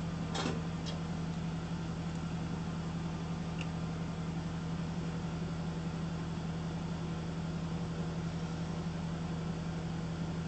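Steady low mechanical hum of a running machine such as a fan, unchanged throughout, with two light clicks about half a second in.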